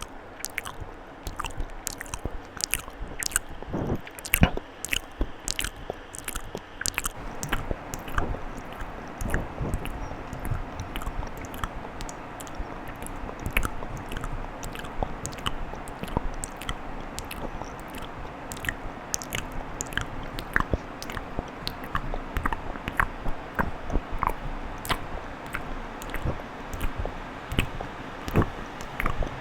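Close-miked ASMR mouth sounds: wet tongue and lip clicks and smacks in a quick, irregular run, several each second.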